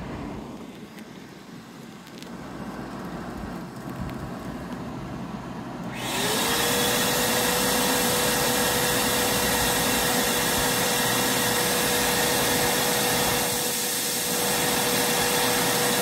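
Shop vac switched on about six seconds in: its motor whine rises quickly to a steady high pitch and then runs loudly and evenly. It is powered from an inverter that is also running an air conditioner, and it doesn't sound as if it is loading the inverter down.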